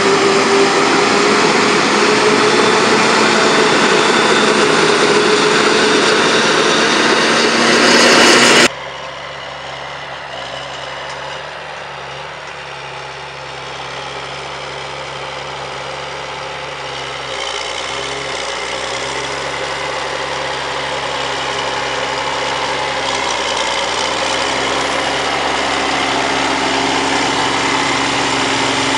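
Claas Jaguar forage harvester chopping maize, a loud dense machine sound with a steady hum. After a sudden cut about nine seconds in, a New Holland tractor's diesel engine pulls a precision planter, growing steadily louder as it approaches.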